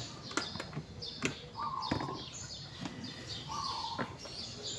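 Birds chirping throughout, with a buzzy call repeating about every two seconds. Several sharp metal clicks and knocks, the loudest sounds, as a scooter's exhaust muffler is handled and fitted into place.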